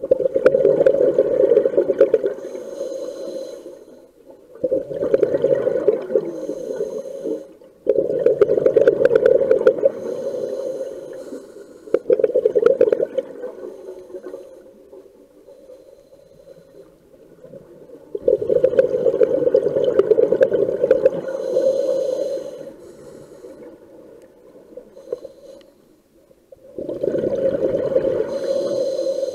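Scuba diver breathing through a regulator underwater: about six long bursts of bubbling exhalation, each two to four seconds, with quieter gaps between.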